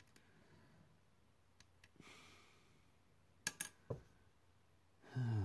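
A steel scriber scratching faintly along a brass sheet, then two sharp clicks and a duller knock as it is set down on the brass. Near the end, a short low sigh falling in pitch.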